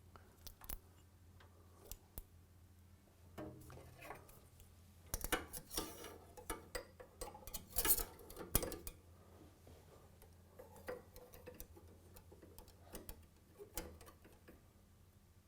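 Small metal parts and hand tools clicking and clinking as a mower's engine mounting and chain coupling are worked on by hand. The clicks come in irregular runs, thickest in the middle, over a faint steady hum.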